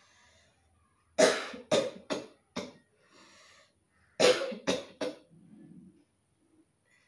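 A person coughing deliberately in two fits: four hard coughs about a second in, a breath drawn, then three more coughs. A short low throaty sound follows near the end.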